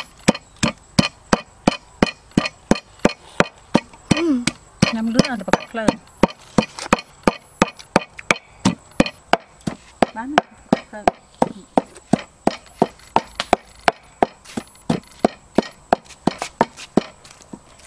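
Wooden pestle pounding in a mortar, steady knocks at about three strikes a second.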